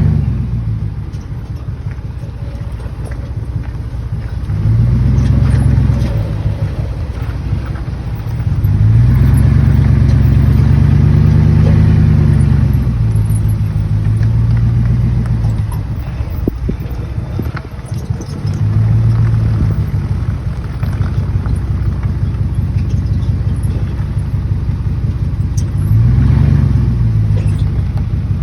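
Ram 1500 pickup driving slowly, recorded from outside the truck: the engine pulls up and eases off four times, the longest pull about a third of the way in. Light clinking and squeaking comes from a worn CV joint on the axle, which has lost its grease through a busted boot.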